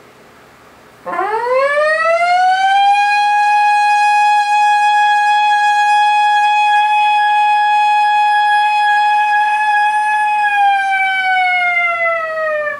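A man's voice imitating a fire engine siren in one long breath. The pitch sweeps up about a second in, holds steady for about nine seconds, then starts to fall near the end.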